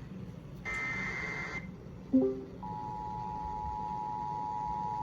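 Emergency Alert System broadcast tones: the last one-second burst of the screeching SAME digital header. After a short loud blip it gives way to the steady two-tone EAS attention signal, which holds to the end and marks the start of a flash flood warning.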